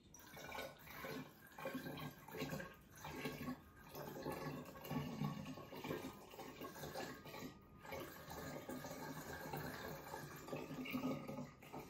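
Strawberry wine poured from a glass jar through a plastic funnel into a glass wine bottle, gurgling and glugging unevenly as the bottle fills. It starts abruptly.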